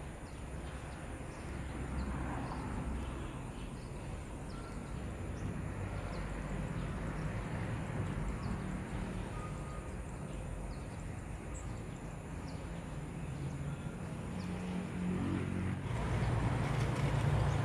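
Motorbike engine running steadily, getting louder near the end as it comes closer. Faint short ticks sound over it.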